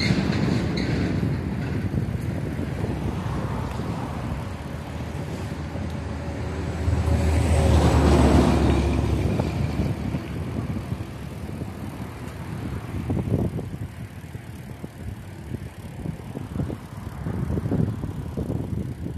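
Wind noise on the microphone and the rattle of a bike rolling over a rough dirt track. The loudest gust comes about eight seconds in, and short knocks and jolts follow in the second half.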